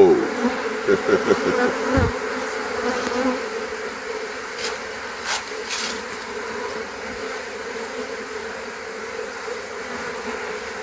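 Honeybees buzzing in a steady hum around an opened Langstroth hive; the colony has been disturbed by the inspection. In the first two seconds several bees fly close past the microphone, their pitch rising and falling as they pass. A dull knock comes about two seconds in.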